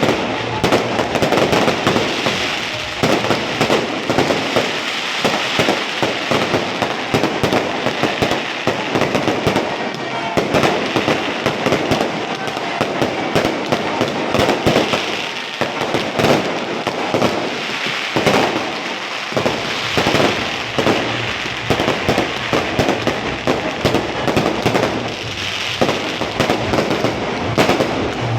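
Fireworks going off in a dense, continuous barrage of rapid crackling and bangs.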